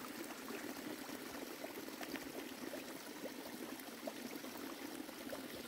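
Small mountain stream trickling and splashing over rocks in a low, steady wash.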